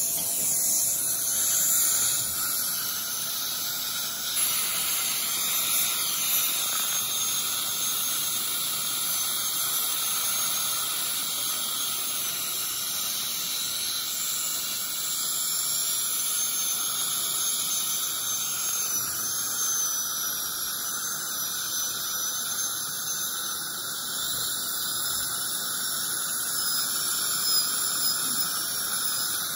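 High-speed dental handpiece running steadily as it cuts a molar down for a zirconia crown: a thin, high whine that wavers in pitch over a steady hiss.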